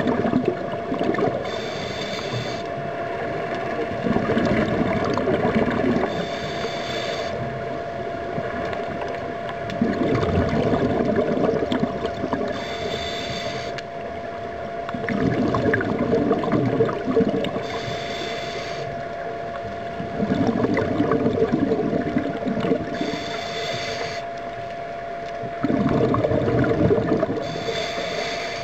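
Scuba diver breathing through a regulator underwater: a short hissing inhale, then a longer bubbling exhale, repeating about every five seconds, six breaths in all. A steady hum runs underneath.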